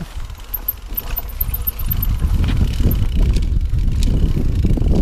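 Mountain bike riding fast over a rocky trail: tyres rumbling over stones, with rattling and a few sharp knocks from the bike. The rumble grows louder about two seconds in.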